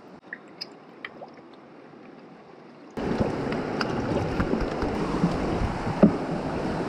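A few light metallic clicks as spark plugs and a plug socket are handled. About three seconds in, it turns sharply to much louder rushing river water and wind on the microphone, with scattered knocks from working on the outboard's plug leads and cowling.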